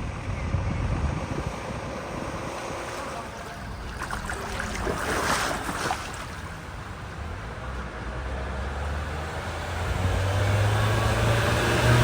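A vehicle driving through flood water, its tyres throwing up a surge of spray about four to six seconds in, with an engine hum building near the end. Wind buffets the microphone.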